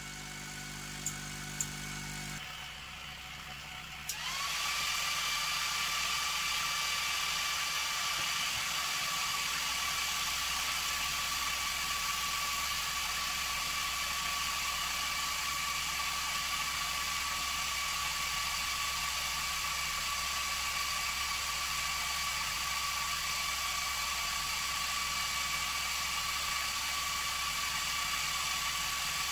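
A LASER TREE LT-K30 30 W diode laser cutting a 20 mm wooden rail with air assist: a steady hiss of blowing air together with a steady machine whine. The whine starts about four seconds in with a short rise in pitch, after a few seconds of low hum and two light clicks.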